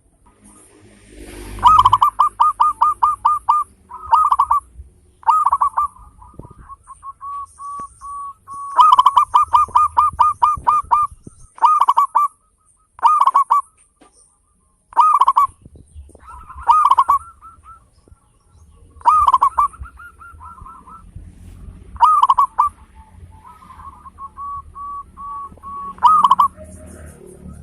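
Zebra dove (perkutut) cooing in short, clipped notes: rapid runs of about five coos a second alternate with single and paired notes and softer rolling trills, phrase after phrase.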